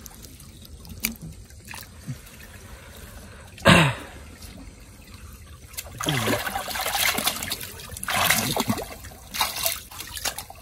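Shallow muddy water trickling and splashing as hands grope through it for freshwater prawns. The splashing comes in uneven stretches that are louder over the second half, with one brief louder burst about a third of the way in.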